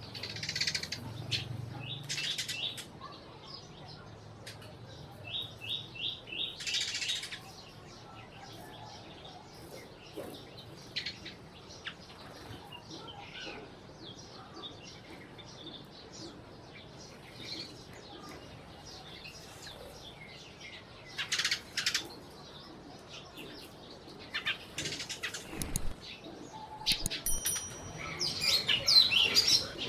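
Sparrows chirping, with brief bursts of wing flutter. There is a quick run of about five chirps around five seconds in, and the chirping and fluttering get busier near the end.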